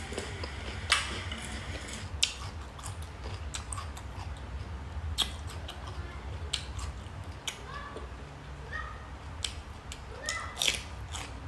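Close-miked eating sounds: scattered sharp wet clicks and smacks of chewing and pulling apart steamed chicken by hand, over a steady low hum.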